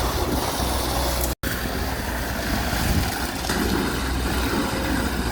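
Heavy vehicle engine running steadily, a low hum with noise over it. The sound drops out completely for a moment about a second and a half in.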